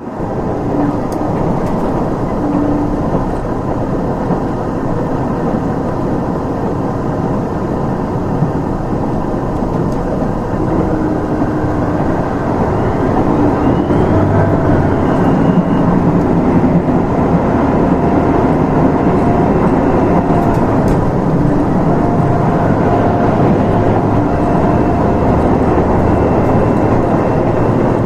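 Steady running noise of a limited express Nanpū diesel railcar, heard from inside the passenger cabin. It grows a little louder about halfway through.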